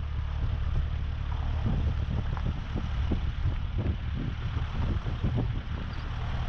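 Four-wheel-drive ute driving along a gravel track, heard from outside the vehicle: a steady low rumble of engine and tyres, with irregular wind buffeting.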